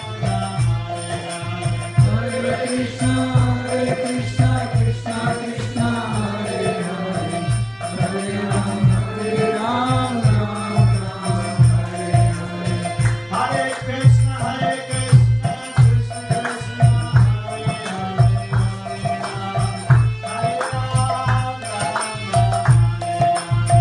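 Kirtan: devotional chanting sung to music, with steady held instrumental tones and a continuous beat of percussion.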